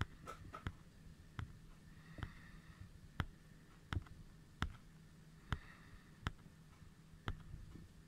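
A series of about ten sharp, separate clicks, roughly one a second, over a faint low hum.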